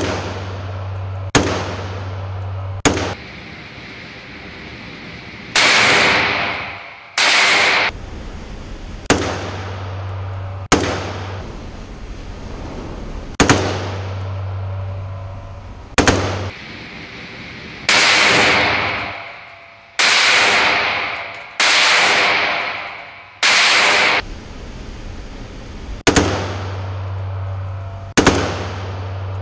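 AR-15-style carbine firing in an indoor range: single shots a second or two apart, then six short full-auto bursts of about a second each in the middle, then single shots again, each shot ringing off the range walls.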